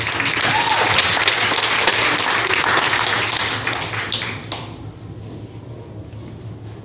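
Audience applauding, a dense burst of many hands clapping for about four and a half seconds that then thins out to scattered claps.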